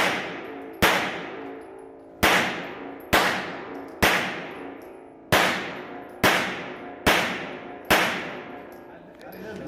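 Hudson H9 9mm pistol firing about nine single shots at roughly one-second intervals, each shot followed by a long echo off the concrete walls of an indoor range.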